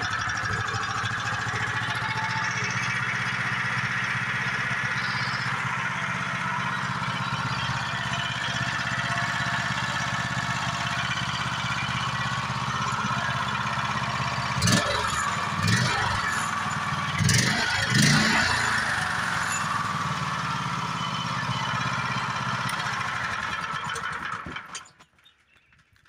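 Predator 420 single-cylinder engine running steadily, with a few short surges in speed, rising and falling in pitch, about 15 to 18 seconds in. It then cuts off a second or two before the end. It runs pretty good.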